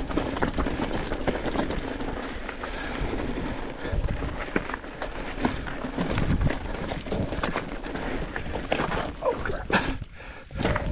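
Mountain bike riding over a loose, rocky trail: tyres crunching on gravel and stones while the bike rattles and clatters over the bumps.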